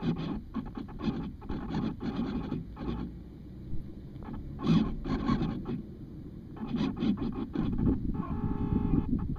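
Irregular bursts of scratching and rubbing close to a camera's microphone. A short buzzing tone comes in a little before the end.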